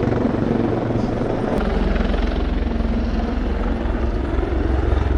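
Royal Navy Wildcat helicopter flying past, its rotor blades beating and turbines running loud and steady.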